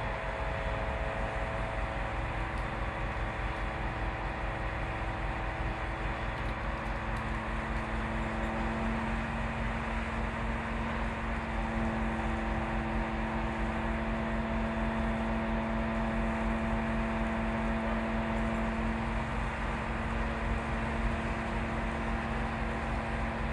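The 22-metre aerial platform truck's engine and hydraulic pump running steadily while the boom is up, with a steady mechanical whine. The whine grows stronger for about ten seconds in the middle, then eases.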